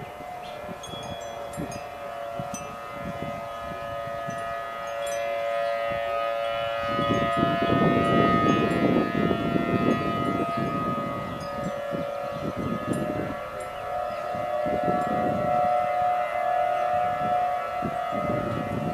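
Outdoor tornado warning siren sounding a steady chord-like tone, growing louder over the first several seconds, then swelling and fading in loudness, with gusts of wind noise from about seven seconds in.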